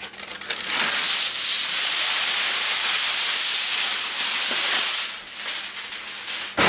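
Heavy-duty aluminium foil being pulled off the roll and handled: a steady crinkling rustle for about four seconds, then breaking into uneven rustles with a sharp crack near the end.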